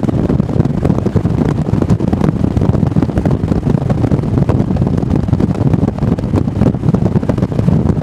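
Wind buffeting the microphone of a camera on a moving motorcycle, a loud, uneven rumble, with the motorcycle's engine and road noise running beneath it.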